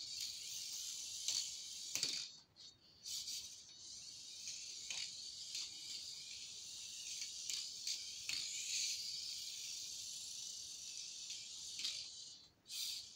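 Turbo Racing C75 1:76 micro RC car running laps, its tiny motor and gears giving a high-pitched hissing whine. The whine drops out briefly about two seconds in and again near the end, and there are a few faint clicks.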